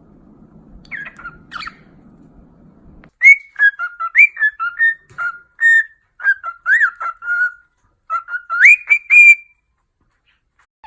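A parrot whistling: a quick run of short, clear whistled notes and chirps that hop between a few pitches, with a sharp upward whistle near the end before it stops.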